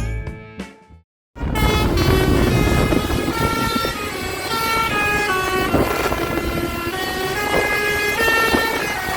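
Telolet basuri bus horn, a multi-tone musical air horn, playing a melody in quick stepped notes over the bus's vehicle noise. Before it, a tail of background music cuts off about a second in.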